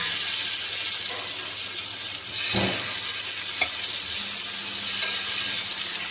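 Marinated boneless chicken pieces sizzling as they are laid in a hot, oiled frying pan; the sizzle grows louder about two seconds in as more pieces go down, with a few short knocks.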